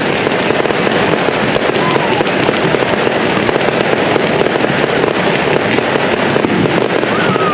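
Aerial fireworks display, with shells bursting and crackling in rapid, continuous succession.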